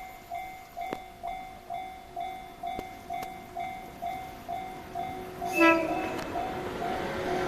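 A level-crossing warning bell dings steadily about twice a second. About five and a half seconds in, the approaching Shinano Railway S26 electric train gives one short horn blast, the loudest sound here, and then the noise of the train itself starts to build.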